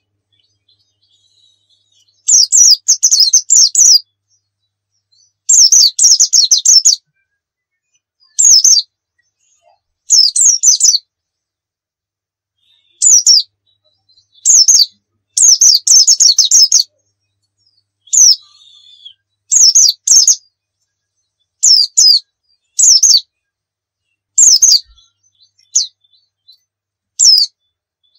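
Pleci dakun white-eye singing, a string of quick, high-pitched twittering phrases. Each phrase lasts about half a second to two seconds, with pauses of a second or two between them.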